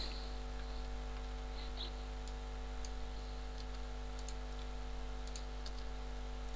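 A few faint computer mouse and keyboard clicks over a steady low electrical hum.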